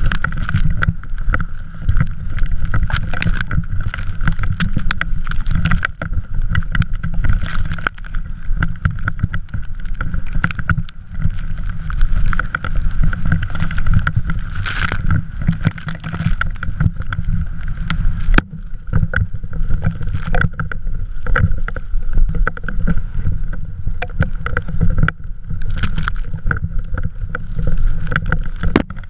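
Drift trike riding down a snowy slope: wind buffets the GoPro microphone with a constant low rumble, and the trike's frame knocks and rattles over bumps many times.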